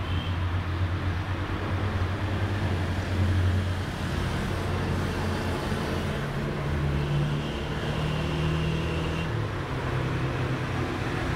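Steady low hum of motor traffic, its pitch shifting upward about halfway through, with a faint high tone for a couple of seconds in the second half.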